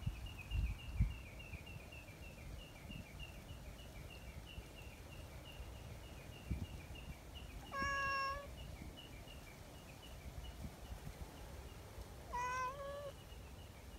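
Tabby cat meowing twice, short calls about eight seconds in and again near the end, the second one wavering slightly in pitch. A fast, even, high-pitched chirping repeats in the background, with a few soft low thumps early on.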